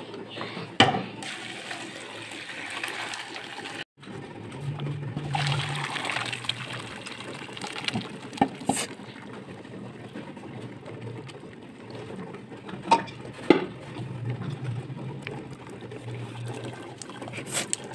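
Hot chicken broth poured from a pressure cooker through a metal mesh strainer into an aluminium pot, splashing and trickling, with a few sharp metal clinks of the strainer against the pot.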